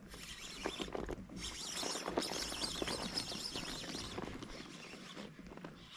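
A fishing reel being wound in on a hooked small fish, with a run of faint, irregular clicks and rustles.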